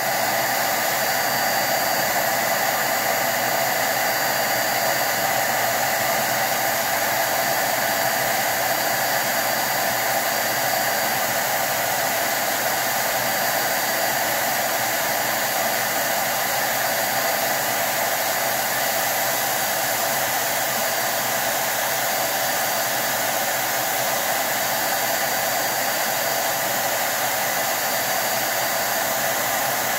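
DataVac electric duster running steadily, its blower pushing a constant stream of hot air with a faint whine over the rush. The heated air is blasting built-up residue out of a vaporizer cooling chamber.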